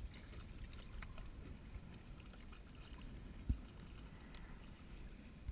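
Low, steady rumble of wind and water around a small boat at rest, with a few faint clicks and one dull thump about three and a half seconds in.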